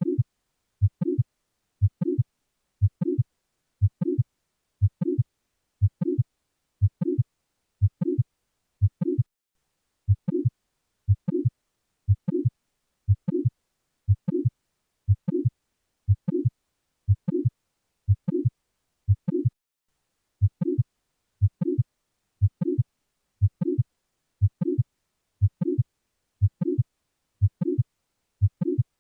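Heart sounds of mitral valve prolapse: a steady beat of about one a second, each beat carrying a late systolic crescendo murmur, the sign of the prolapsing mitral valve leaking back in late systole.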